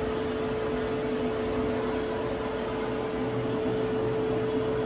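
Steady hum of a powered-up CNC milling machine standing idle, with a constant mid-pitched whine.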